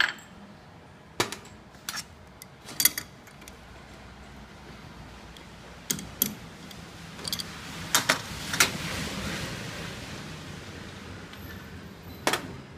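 Sharp metal clinks and knocks, about ten in all, as steel mould parts of a blister packing machine and an adjustable wrench are handled while the mould is taken apart. There is a spell of hiss around the middle and a faint steady hum underneath.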